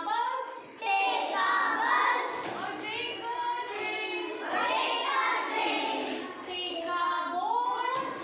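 A class of young children chanting an English poem together in a sing-song unison.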